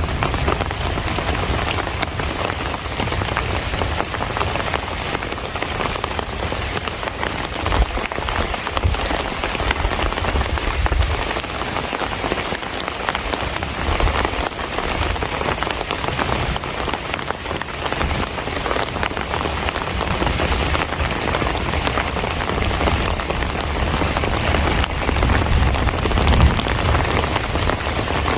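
Steady, heavy monsoon-season rain falling, a dense hiss with many close drop ticks and a low rumble underneath.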